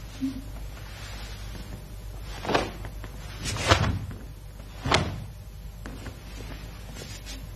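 A karateka's cotton gi snapping three times with sharp strikes and blocks of a kata, the middle snap the loudest, with a dull thud of a bare foot on the mat. A low steady hum underneath.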